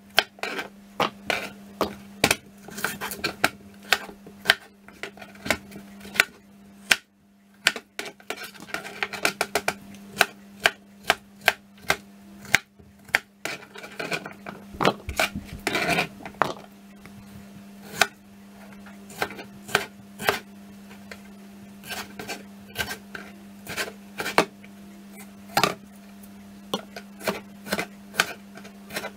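Chef's knife dicing cucumber and then tomato on a cutting board: irregular sharp taps of the blade striking the board in quick runs, with brief pauses. A steady low hum runs underneath.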